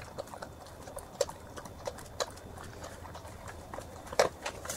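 A dog eating dry kibble from a stainless steel bowl. Sharp crunches and clinks of pellets against the metal come about once a second, the loudest about four seconds in, a slow pace as it picks at the last few pellets.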